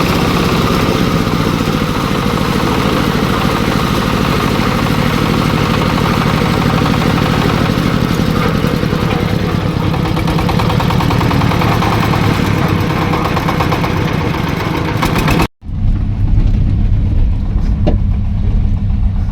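Engine-driven corn sheller running steadily and loud, a dense mechanical din of engine and threshing drum. About three-quarters of the way through it cuts off abruptly and a deeper engine rumble takes over.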